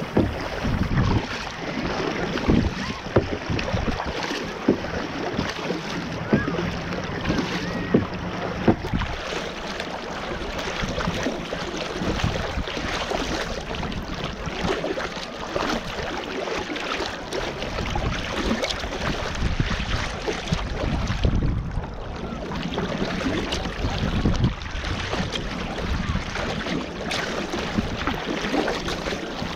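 Choppy sea water splashing and slapping against a kayak's hull as it is paddled, with paddle strokes dipping into the water. Wind buffets the microphone with low rumbles.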